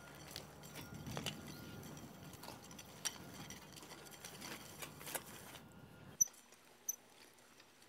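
Hand-pushed wheel hoe with Terrateck bio-disques running through the soil, giving faint scattered metallic clicks and rattles. The sound drops off suddenly near the end, leaving a couple of short sharp clicks.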